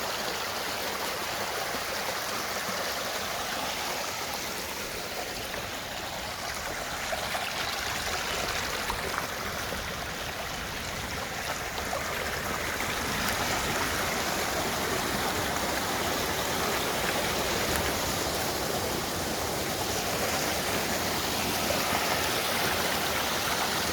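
Floodwater rushing steadily down a swollen creek, a little louder in the second half.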